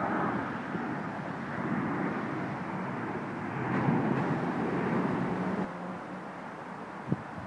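Steady vehicle noise of automated electric pod cars rolling along their guideway, swelling a little midway. It drops in level about two-thirds of the way through, and a single click follows near the end.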